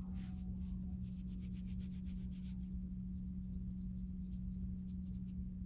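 Faint soft rubbing of palms rolling a small coil of clay between them, mostly in the first half, over a steady low hum.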